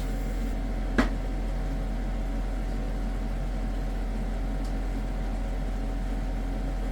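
Steady low mechanical hum, like a running kitchen appliance, with one sharp click about a second in.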